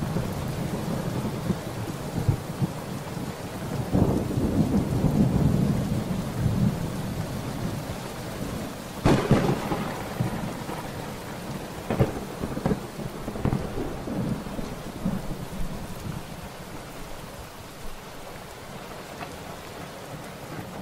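Thunderstorm: thunder rumbling over steady rain, with a sharp thunderclap about nine seconds in and smaller cracks a few seconds later.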